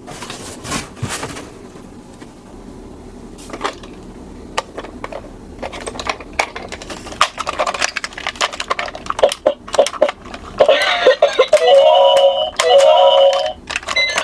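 Plastic toy minicars clicking and knocking as they are handled and run down a toy slope, with scattered sharp clicks. From about eleven seconds in, a toy ambulance's electronic siren sounds, steady tones switching between pitches.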